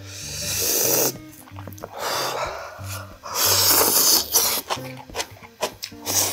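A person slurping hot food off chopsticks in two long, loud slurps, the first at the start and the second about three and a half seconds in, followed by short wet clicks of chewing. Background music with a low bass line runs underneath.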